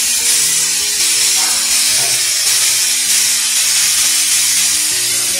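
A covered pan on a gas stove hissing steadily as steam pours out of it.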